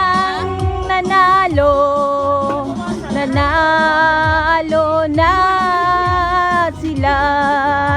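Background music: a singing voice holding long, drawn-out notes over a steady beat.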